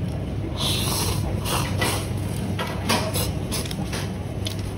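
Irregular crisp crackles and crunches of packaged snacks being handled and eaten, over a steady low background hum.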